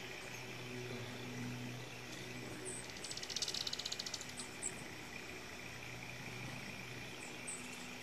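Small songbirds at a backyard feeder: several short, very high chips and a rapid dry trill of about a second and a half near the middle. Under them runs a steady faint low hum.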